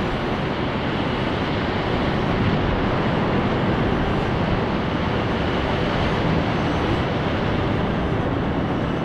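Steady rush of whitewater rapids, a constant noisy roar with no breaks.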